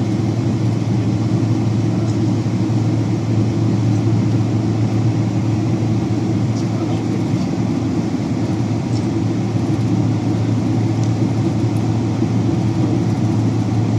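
Steady drone inside the cabin of a Boeing 767-300 airliner, from its engines and the air rushing past; low-pitched and unchanging.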